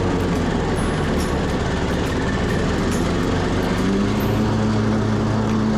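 Cub Cadet XT1 riding lawn mower's engine running steadily under mowing load. Its note sags for the first few seconds and picks back up about four seconds in, as it cuts thick, wet, overgrown grass.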